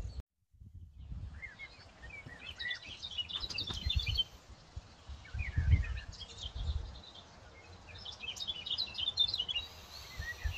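Small birds singing in three short bouts of quick chirps, over a low uneven rumble of wind on the microphone.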